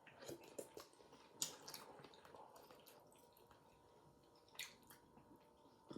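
Near silence: room tone with a few faint, short wet clicks and taps.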